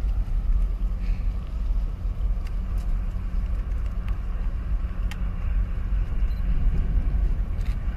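Wind buffeting the microphone: a steady, uneven low rumble, with a few faint ticks.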